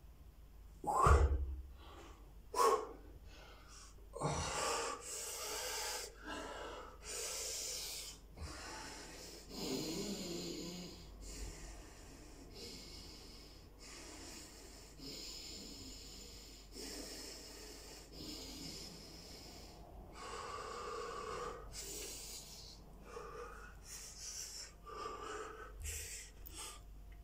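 A man breathing hard from fingertip push-ups. Two short, sharp exhales come about a second in and just under three seconds in. Then long, heavy breaths follow one after another as he recovers.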